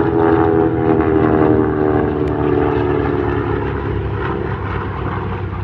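Radial piston engines of a Vought Corsair and a Grumman Avenger flying past together: a loud propeller drone whose pitch falls slowly as they go by.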